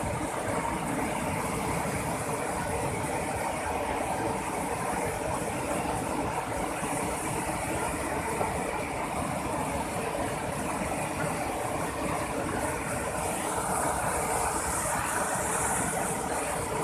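Muddy floodwater rushing over a low weir and churning in standing waves below it, a steady, unbroken rush of water.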